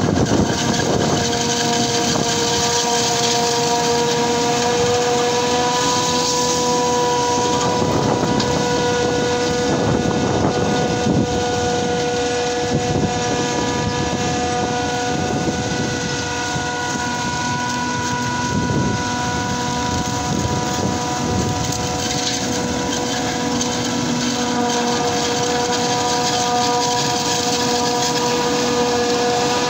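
Self-propelled forage harvester running steadily as it cuts and chops standing maize, a steady whine over the engine noise, with the tractor alongside.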